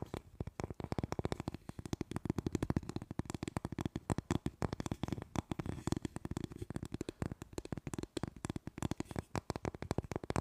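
Fingernails tapping quickly on a hard resin block held right at the microphone: a fast, unbroken run of many small taps a second, full and low in tone.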